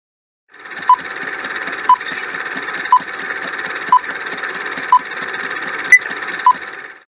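Quiz countdown timer sound effect: rapid ticking over a steady hiss, with a short beep about once a second, the last two beeps coming closer together, then it cuts off suddenly.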